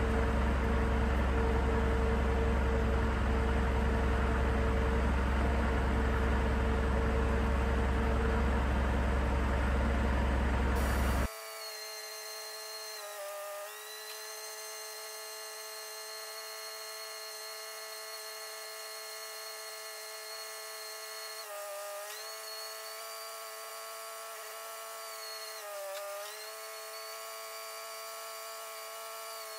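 An engine runs steadily with a deep rumble for about the first eleven seconds. After an abrupt cut, a power tool's motor whines steadily, its pitch dipping briefly four times as it is loaded, cutting a slot in the bulkhead.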